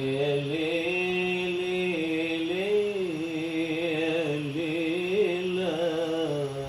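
Quran recitation in melodic tilawah style: a single voice holds long, drawn-out notes that waver and slide slowly up and down in pitch.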